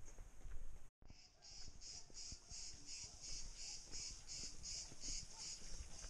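An insect chirping in a steady pulsing rhythm, about three high chirps a second, starting about a second in.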